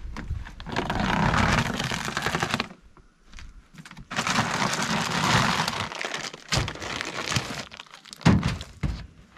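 Shelled corn poured from a bag into a deer feeder, heard as two long rushing pours of kernels, followed by a few knocks and a sharp thump near the end.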